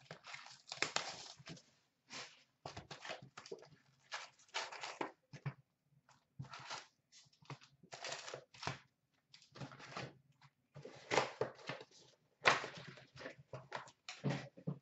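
A cardboard hockey card box being torn open and its wrapped card packs rustling and crinkling as they are pulled out and stacked, in many short, irregular bursts.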